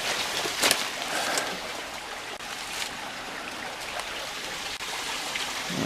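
Creek water flowing and trickling steadily over rocks, with a few brief clicks, the clearest about a second in.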